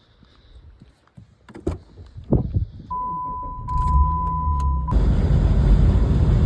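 A car being started: a few knocks and key sounds, then a steady electronic warning tone for about two seconds while the starter cranks. The engine catches just before the end and settles into a steady running noise.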